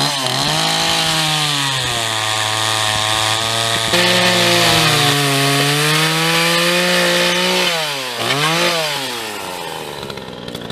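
Chainsaw running at high revs while cutting through wood, louder from about four seconds in. Near the end it revs down and up twice, then drops toward idle.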